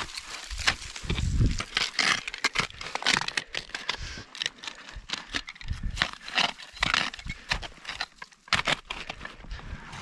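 Ice axes and kicked boots biting into firm snow, an irregular run of crunching strikes and low thuds as a climber works up steep snow.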